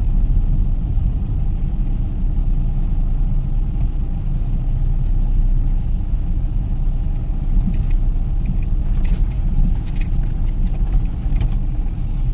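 Steady low rumble of a Toyota Corolla EE100 being driven, engine and road noise heard from inside the car. A few light clicks and rattles come through about eight to eleven seconds in.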